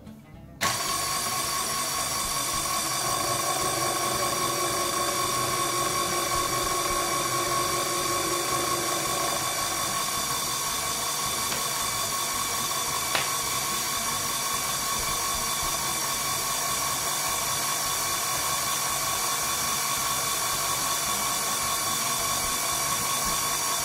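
Electric stand mixer motor driving a pasta-roller attachment. It switches on about half a second in and runs at a steady whine while egg pasta dough is rolled into a sheet.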